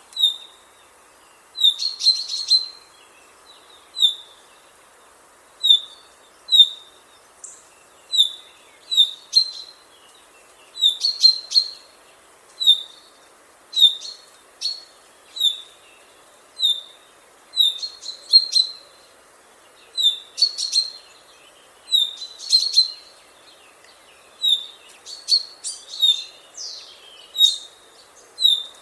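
Chaffinch calling, repeating a short, sharp call about once a second, with quick runs of higher chirps every few seconds.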